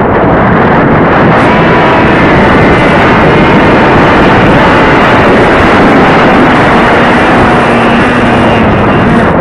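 Electric motor and propeller of a foam RC plane running at high throttle, heard close from the plane's onboard camera: a loud, steady whirring rush with a faint whine in it. The whine drops slightly in pitch near the end, and the sound cuts back sharply at the very end.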